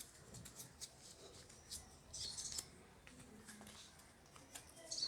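Quiet, with a few light clicks and taps from handling, and a short bird chirp about two seconds in.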